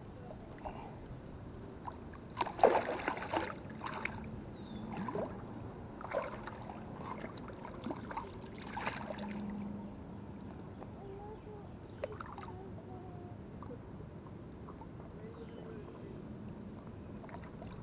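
Clicking and rustling handling noises close to the microphone, loudest in a cluster a few seconds in, over water lapping at the pond bank. A few faint short chirps come later.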